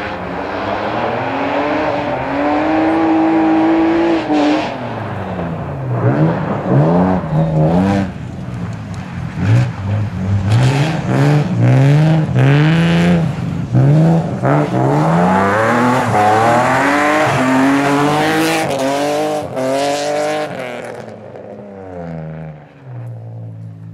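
BMW 325 coupe rally car's straight-six engine revving hard, its pitch climbing and dropping again and again as it accelerates, shifts and lifts over a gravel stage. The engine falls away and quietens near the end.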